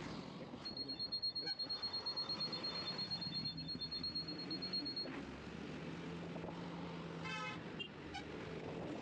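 Road traffic noise with a rapid, high-pitched electronic beeping for about four seconds, then a short vehicle horn toot about seven seconds in.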